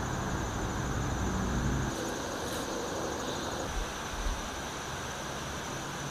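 Steady outdoor ambience in woods: an even hiss with a faint, high, steady insect drone, and a low rumble during the first two seconds.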